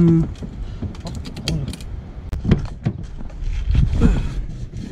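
Jumper-cable clamps clicking and clacking on a flat car battery's terminals as they are clipped on for a jump start: a quick series of sharp metallic clicks in the first two seconds, then a few louder knocks.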